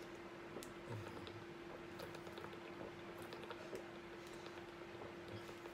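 A person drinking from a large thin plastic water bottle: faint crackles and clicks of the plastic flexing, with a couple of soft swallows about a second in. A faint steady hum runs underneath.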